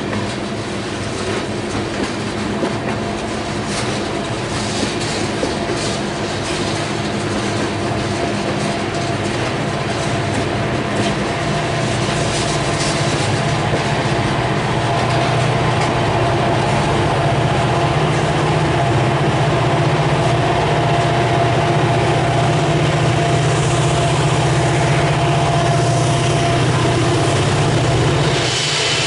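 Loaded freight cars of a long tank train rolling past with wheel clatter on the rails. From about halfway a low, steady diesel engine sound grows louder: the rear helper locomotives working the train up the grade as they come closer.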